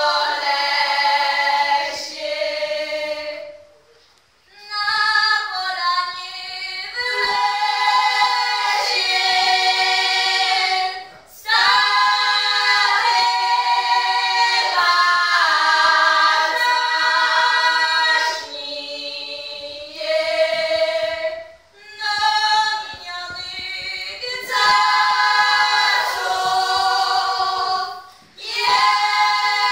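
Group of young women singing unaccompanied in Polish highland (Podhale) folk style, several voices together in loud, open-voiced held notes. The song comes in short phrases with brief breaks between them.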